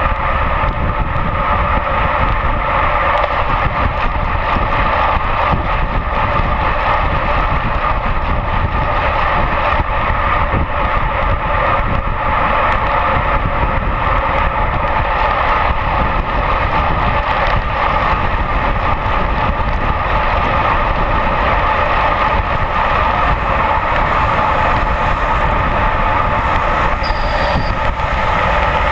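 Steady rush of wind and tyre rumble on a bicycle-mounted action camera while riding at speed.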